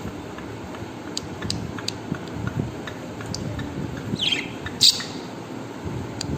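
Pet bird giving a few short high chirps: faint clicks early on, a quick falling chirp about four seconds in, then one sharp loud call just before five seconds. A steady low rumble runs underneath.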